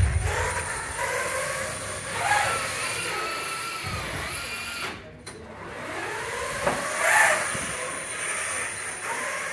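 FRC competition robot's electric motors whining, the pitch rising and falling again and again as the robot accelerates, brakes and moves its mechanism, with a few low thuds along the way.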